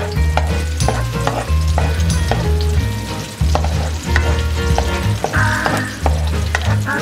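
Chopped onion and garlic sizzling in hot oil in a metal wok, with a wooden spatula stirring and scraping against the pan.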